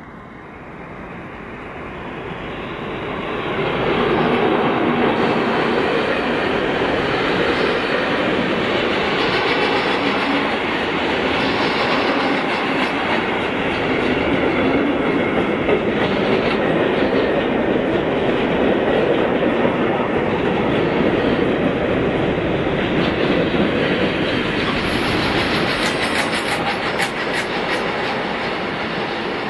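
DB class 294 diesel-hydraulic locomotive passing at the head of a freight train. It grows louder over the first four seconds, then a long string of freight wagons rolls by with wheels clattering on the rails, with a run of sharp clacks near the end.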